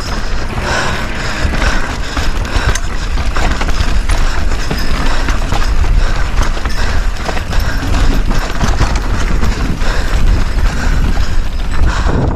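Mountain bike riding down a rocky trail, heard through a GoPro's microphone: a constant wind rumble with the tyres and frame rattling over rock in frequent sharp knocks.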